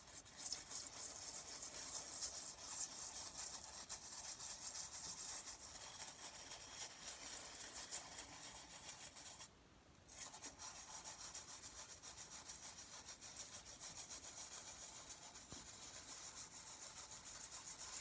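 Toothbrush bristles scrubbing a small water turtle's shell in rapid strokes, a scratchy rubbing, with a brief pause about halfway through.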